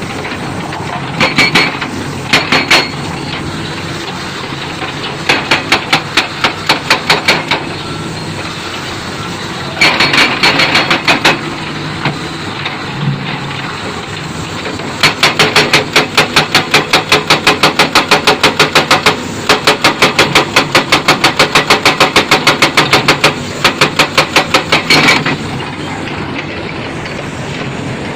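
Hydraulic breaker on heavy equipment hammering in rapid, evenly spaced blows over a steady diesel engine. It strikes in several short bursts, then in one long run of about ten seconds in the second half.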